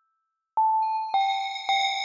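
Teenage Engineering OP-1 Field synthesizer playing a bell-like chime patch: about half a second of silence, then three struck notes about half a second apart, each ringing and fading, the first a little higher than the other two.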